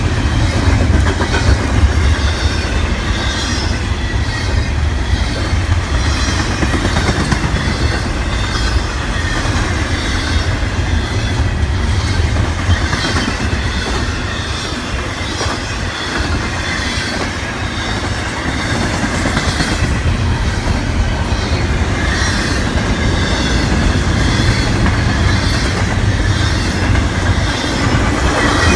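Double-stack intermodal container freight cars passing close by at speed: a steady rolling rumble with regular clickety-clack of the wheels over the rail joints.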